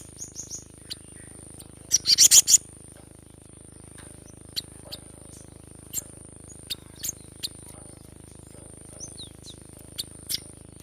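Cinereous tit (gelatik batu) calling: a fast, loud run of about six sharp notes about two seconds in, then scattered single short chips. A steady high-pitched whine lies underneath throughout.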